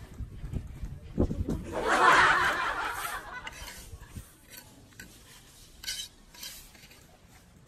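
Rustling and handling of cut grass and a plastic feed sack as the grass is gathered by hand. The loudest stretch is a rustle from about two seconds in to three seconds in, followed by a few light crackles.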